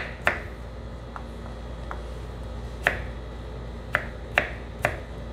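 Kitchen knife dicing raw potato on a wooden cutting board: sharp, irregular knocks of the blade striking the board, about six clear ones with a couple of fainter taps between.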